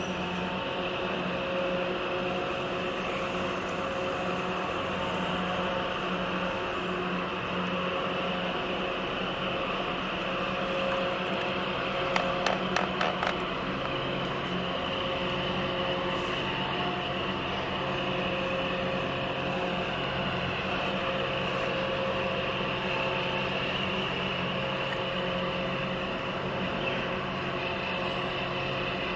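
Boat diesel engine running with a steady drone and hum over a constant wash of noise. About twelve seconds in, a quick run of five or six sharp clicks.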